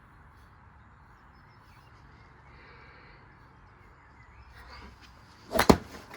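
Washing machine running with a steady rumble, and one loud, sharp knock about five and a half seconds in, typical of the golf ball and concrete weights striking the drum.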